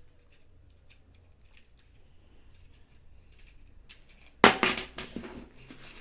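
Handling noise: light scattered clicks, then a sudden loud burst of crackling and rattling about four and a half seconds in that fades over about a second.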